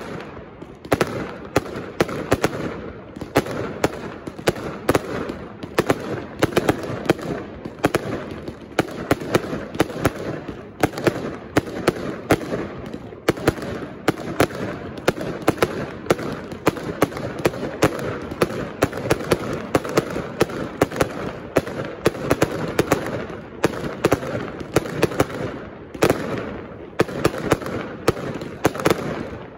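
Castillo aerial fireworks display by Pirotecnia Turis: a rapid, continuous barrage of sharp bangs, several a second, over steady crackling as many shells and comets burst overhead.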